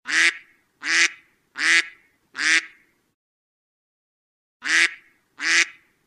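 A duck quacking: four short quacks about three-quarters of a second apart, a pause of about two seconds, then two more quacks near the end.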